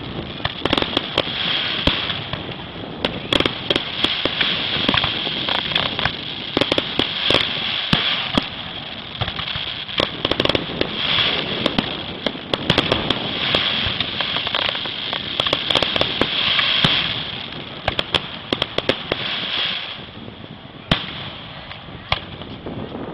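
Fireworks display: a dense run of aerial shells bursting with continuous crackling. The barrage thins out about twenty seconds in, then a single sharp bang.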